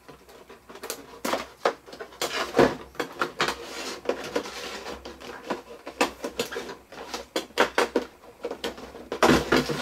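Clear plastic blister packaging and plastic wrap crinkling, crackling and clicking as a figure is handled and pulled out of it. The sounds come in irregular rustles and snaps, with a louder bout of crinkling near the end.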